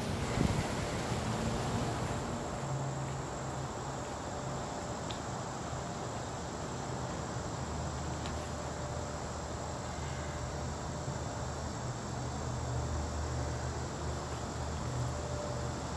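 Insects, crickets or similar, trilling in a steady high drone, with a low steady hum underneath.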